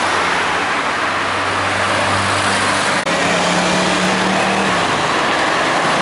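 Cars passing close on a busy city street: a steady rush of tyre and engine noise. One engine note holds low for the first half, then after a short break about three seconds in, a higher engine note is heard for nearly two seconds.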